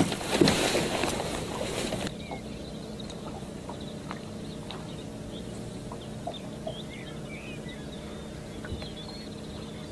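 Water splashing and sloshing around a landing net for about two seconds as an unhooked trout is let go, then it cuts off abruptly. What follows is quiet: a faint steady low hum and a few faint bird chirps.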